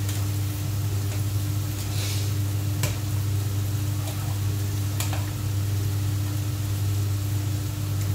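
Stovetop cooking sizzle with a steady low hum underneath, and a few sharp clicks of a spoon against the pot, about 2, 3 and 5 seconds in, as boiling macaroni is stirred.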